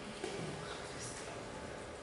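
Low room noise with a faint, brief hiss about a second in.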